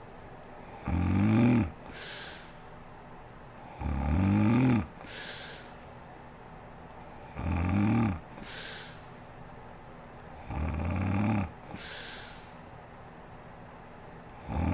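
A sleeping woman snoring: four loud, pitched snores on the in-breath, about one every three seconds, each followed by a softer, breathy out-breath.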